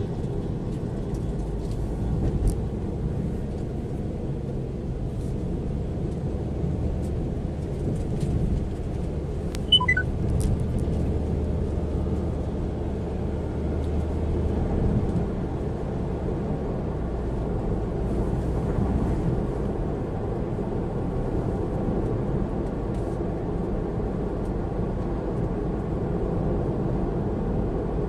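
Steady road and engine rumble of a car cruising on a highway, heard from inside the cabin. A short electronic beep sounds about ten seconds in.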